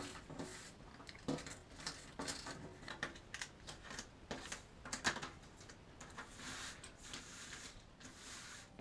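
Large cardboard jigsaw pieces handled on a tabletop: irregular light clicks and taps as pieces are picked up and dropped, with a softer sliding rustle near the end as hands sweep through the pile.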